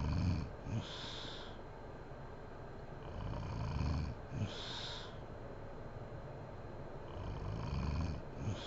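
A sleeping woman snoring heavily in a slow breathing rhythm. There are three snores about four seconds apart, each a low rumbling inhale that ends in a short snort, followed by a breathy exhale.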